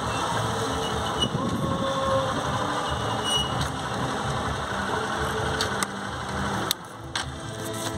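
Motorcycle engine running steadily, with a fast pulsing beat; it drops in level about a second before the end.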